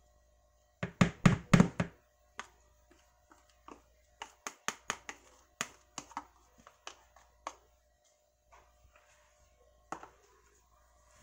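Metal spoon clicking and scraping against a plastic measuring cup and bowl while condensed milk is scraped out onto shredded coconut: a run of separate sharp clicks. A cluster of loud thumps comes about a second in.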